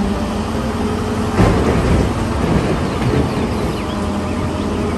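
Caterpillar 992G wheel loader's diesel engine running under load while coal pours from its raised bucket into a dump truck bed, a steady rumbling rush that swells about a second and a half in.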